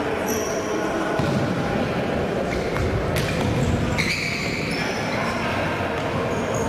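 Indoor futsal play in a sports hall: ball strikes, with short high squeaks of shoes on the court floor, over a steady echoing din of voices in the hall.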